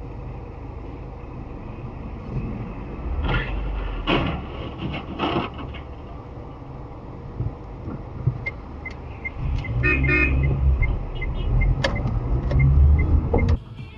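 Car traffic heard through a dashcam in the car: steady low engine and road rumble, a few short sharp sounds about three to five seconds in, and a car horn sounding around ten seconds in, with a regular light ticking over the last few seconds.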